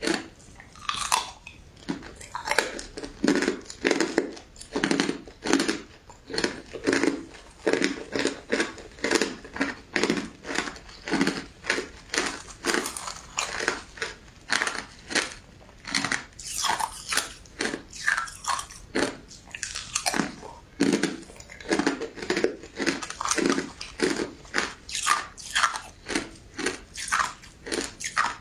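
Ice being bitten and chewed: a steady run of crisp crunches, about two or three a second, as the ice breaks between the teeth.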